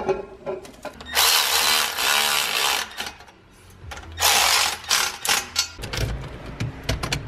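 Cordless electric ratchet running in two bursts of about two seconds each, spinning down the nuts of a tubular exhaust header on a Honda H22 engine.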